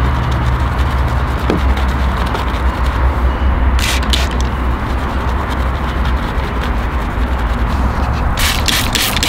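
A machine running with a steady low hum while short hissing sprays are squeezed out, a couple about four seconds in and a quick run of them near the end, as in car-detailing work.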